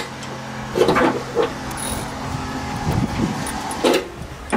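Ratcheting wrench clicking as it turns a thread tap, chasing paint, primer and POR15 out of a bolt hole in a car's frame rail, with a few sharp clicks and knocks. A steady mechanical hum sits underneath and stops about halfway.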